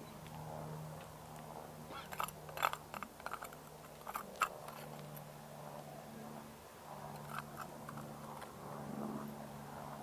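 Gritty scraping and crunching of a small metal hand scoop digging loose soil out of a test hole and knocking against the metal base plate. There is a quick cluster of scrapes and clicks a couple of seconds in and fainter ones later, over a steady low hum.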